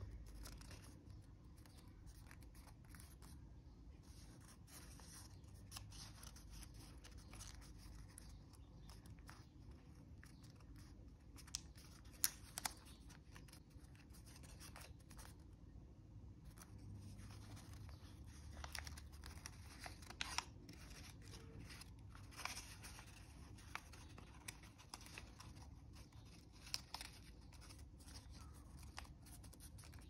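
A sheet of origami paper being folded and creased by hand: faint rustling with scattered sharp crackles as folds are pressed, the loudest about twelve seconds in and several more in the second half.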